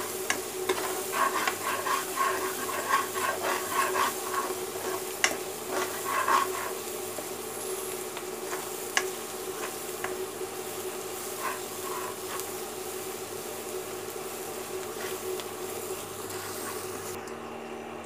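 Onion, ginger-garlic and spice masala sizzling in oil in a kadai as a metal spoon stirs and scrapes it, being fried golden (bhuna) before the dal goes in. The scraping is busiest in the first six seconds, then only an occasional scrape over the sizzle, with a steady hum underneath.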